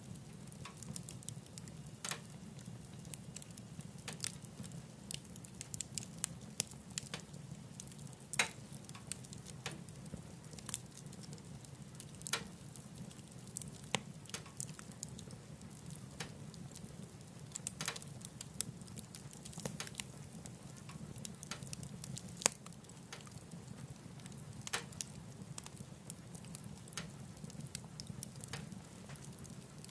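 Wood fire burning in a wood stove, crackling with irregular sharp pops over a steady low rumble.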